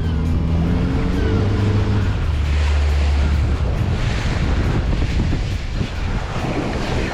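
A boat's motor running with a steady low hum that fades out about halfway through. Wind buffets the microphone and water washes against the hull the whole time.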